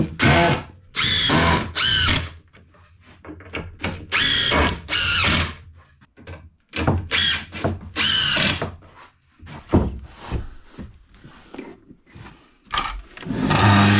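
Cordless impact driver driving screws into timber in a series of short bursts, each under a second. Near the end a mitre saw's motor starts up and runs steadily.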